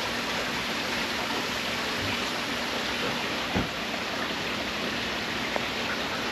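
Steady rain falling, an even hiss, with a single thump a little past halfway.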